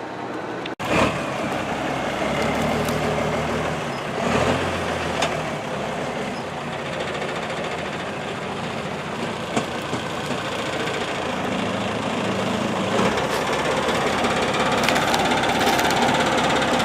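Backhoe's diesel engine running steadily, with a few short clanks, growing a little louder over the last few seconds.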